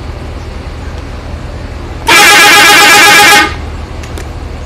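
A bus's telolet musical air horn sounds one warbling blast lasting about a second and a half, starting about two seconds in, over a steady low rumble.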